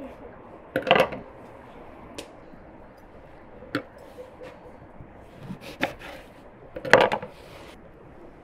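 Kitchen knife slicing feijoas on a wooden cutting board: irregular sharp taps of the blade striking the board, loudest in two short clusters about a second in and near the end.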